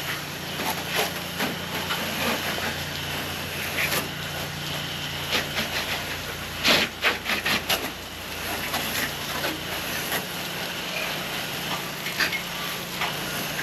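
Gas pressure washer engine running steadily under the hiss of the high-pressure water jet spraying, with a quick run of sharp, louder spray bursts a little past halfway.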